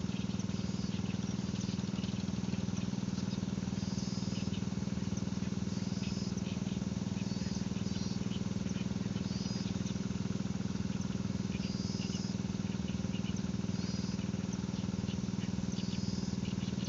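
A steady low mechanical hum, like a motor running, that does not change, with small birds chirping repeatedly in short high calls over it.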